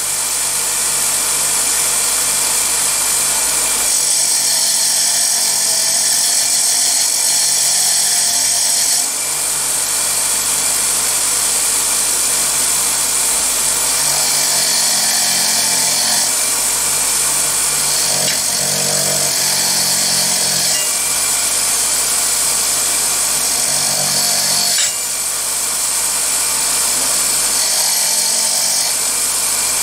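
Bench grinder running with a wire wheel while a rusty axe head is pressed against it to strip the rust. A loud, steady scratchy hiss whose tone shifts every few seconds as the head is moved across the wheel.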